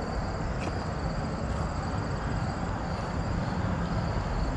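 Crickets trilling steadily over a constant low rushing noise.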